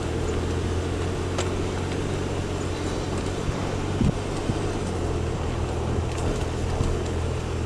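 Car engine and tyre noise heard from inside the cabin while driving slowly: a steady low hum with a light ticking now and then.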